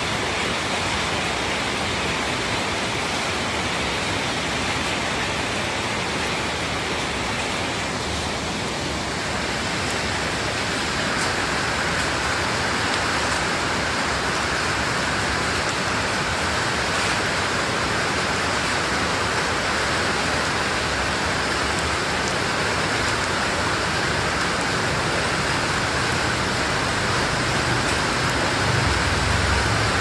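Steady rain falling on wet paving, an even hiss with no break.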